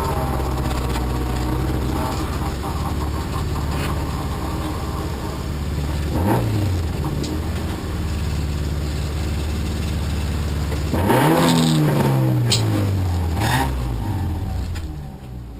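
Toyota Corolla offroad racing car's engine running under load, with a short dip in pitch about six seconds in. About eleven seconds in it gets louder, and its pitch then falls steadily over the next few seconds. A few sharp knocks are heard along the way.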